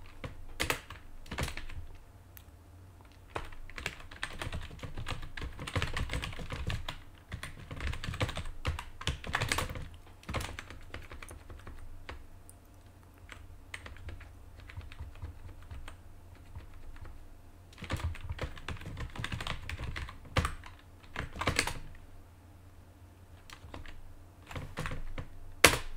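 Typing on a computer keyboard: runs of quick key clicks with pauses between them, over a faint steady hum.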